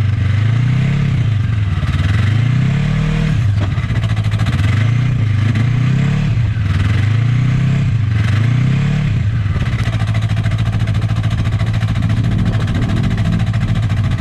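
Snowmobile engines idling, with an engine revving up and back down about every two seconds for the first nine seconds, then settling to a steady idle.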